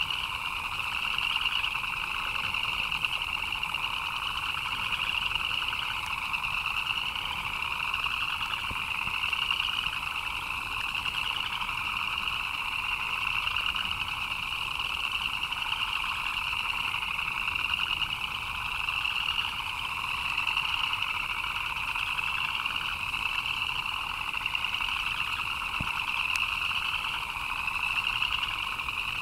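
A dense chorus of many frogs chirping continuously, a higher-pitched set of calls over a lower set.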